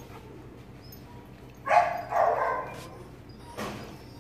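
Young puppy giving two short yips while playing, about two seconds in, the first the louder. A short knock near the end.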